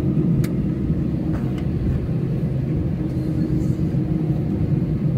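Steady low rumble and hum inside the cabin of an Airbus A320 taxiing, its jet engines running at low power. A light click sounds about half a second in.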